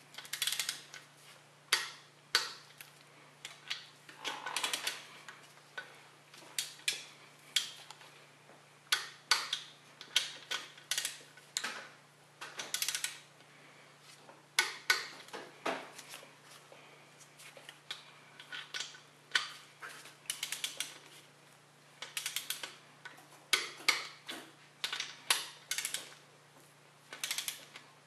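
Click-type torque wrench ratcheting in short bursts of sharp clicks, pausing and starting again, as the main bearing cap bolts are run down and torqued to 70 foot-pounds.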